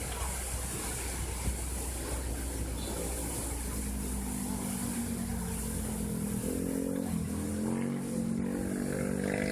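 Steady rush of the Lembah Anai waterfall, with low wind rumble on the microphone for the first half. From about four seconds in, the droning engine of a vehicle on the roadside highway grows louder and shifts in pitch.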